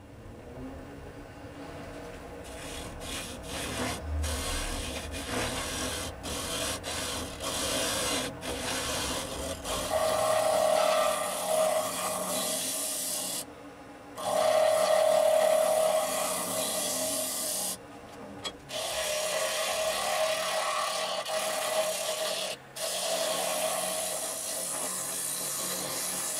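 A lathe tool cutting and scraping a spinning wood-and-resin bowl blank on a wood lathe: first a bent hollowing tool inside the bowl, then a scraper on the outside. The scraping is steady but stops briefly a few times as the tool is lifted, and a pitched ring rises out of it twice.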